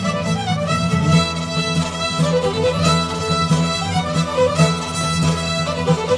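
Background music: a fiddle playing a melody over a steady lower accompaniment.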